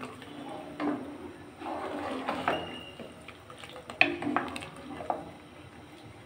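Wooden spoon stirring milk rice pudding (payesh) in a nonstick pot, the liquid sloshing, with a few sharp knocks of the spoon against the pot, the loudest about four seconds in.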